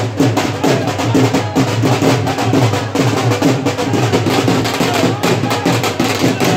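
Fast, continuous drumming with a dense, even beat, as for a ceremonial welcome.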